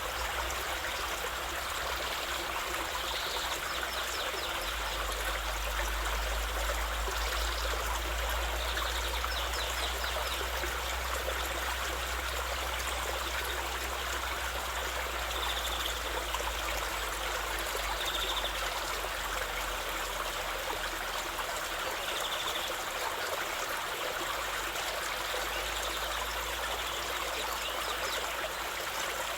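A stream of water running steadily, trickling and splashing, with a low rumble underneath. A few faint, short, high chirps come now and then.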